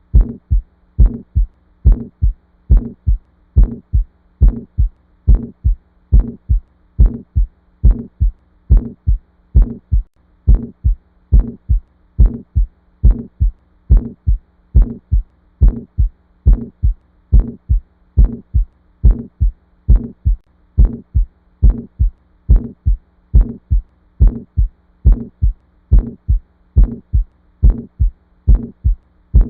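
Human heartbeat sounds, a steady lub-dub: each beat is a pair of low thumps, the first and second heart sounds, repeating regularly at about seventy beats a minute. A steady low hum runs underneath.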